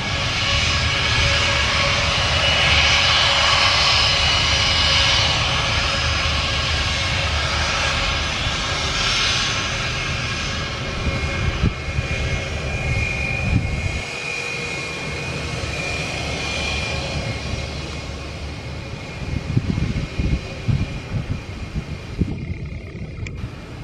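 Batik Air Airbus A320's twin jet engines whining steadily at taxi power as it rolls past and turns onto the runway, loudest in the first several seconds and then fading as it moves away.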